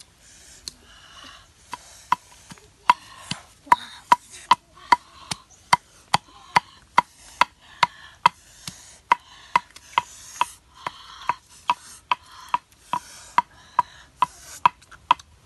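Wooden pestle pounding in a wooden mortar, a steady run of sharp knocks about two to three a second, each with a short hollow ring, starting about two seconds in.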